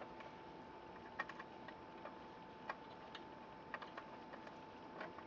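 Faint, irregular small clicks and taps of hand work: a small screw being fastened to attach a ground wire to the engine.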